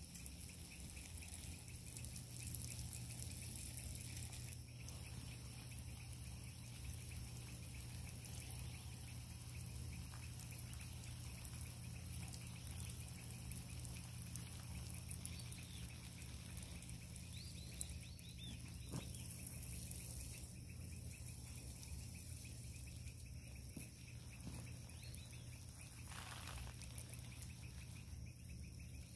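Garden hose spray nozzle running steadily, a faint even hiss of water spraying onto potted plants and soil, with a low steady hum underneath.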